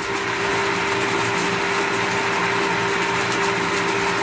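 A 3/4 HP centrifugal water pump running steadily with a constant hum, its discharge pouring a strong stream of water that splashes into a tub. The pump is priming and drawing water well, now that it turns in the correct clockwise direction.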